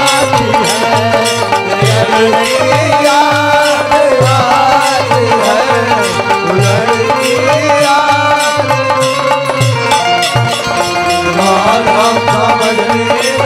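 Live Bhojpuri folk instrumental interlude: a hand drum plays a steady, busy rhythm under a wavering melody line, with no singing.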